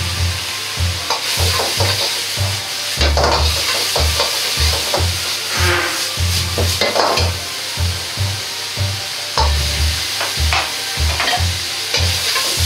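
Fried rice and diced bamboo shoots sizzling hard in an iron wok over a high gas flame, with a metal ladle repeatedly scraping and knocking against the pan as the food is stirred and tossed.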